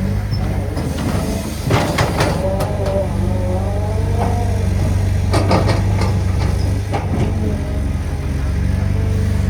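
Diesel engine of a Cat 320GC excavator running steadily, with loud clattering and scraping from digging work about two seconds in and again around five and a half seconds.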